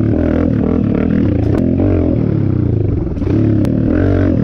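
Dirt bike engine revving hard, its pitch rising and falling with the throttle over the track's rollers, easing off briefly about three seconds in.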